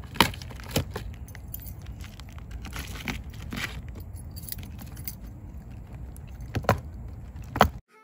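A key ring jangling and scratching as a key is worked along the packing tape of a cardboard box, with several sharp clicks, the loudest near the end, over a steady low rumble. The sound cuts off suddenly just before the end.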